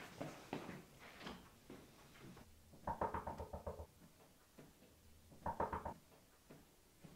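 Muffled knocks and thumps, with two short bursts of rapid rattling about three seconds and five and a half seconds in.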